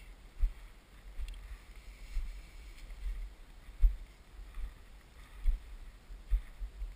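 Someone walking through dry scrub: a dull thump at each footstep, a little more than one a second, with the brush swishing faintly against the legs.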